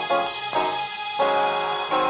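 Instrumental music: a keyboard with a piano sound playing chords, a new chord struck every half second to second.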